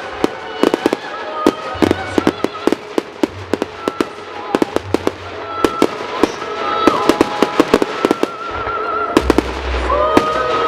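Fireworks display: shells bursting in quick, irregular bangs, many in rapid succession. Under them plays music with a held, wavering sung melody and a bass line.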